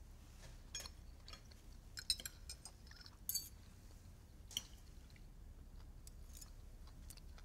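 Faint clinks and scrapes of metal forks on a plate as a dish is tasted, a handful of sharp ticks, the loudest about two and three seconds in.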